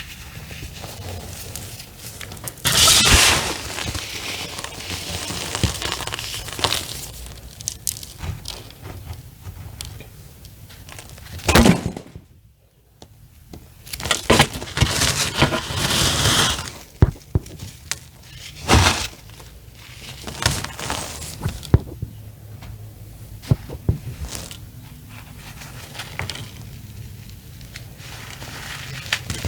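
Soft reformed cornstarch chunks crushed and squeezed in the hand: irregular crunching and crumbling with many small cracks, and louder crunches about three seconds in, near the middle, and around two-thirds through.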